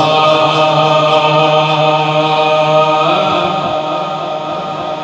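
A man's voice chanting a devotional kalam through a microphone, holding one long steady note that shifts in pitch about three seconds in and eases off near the end.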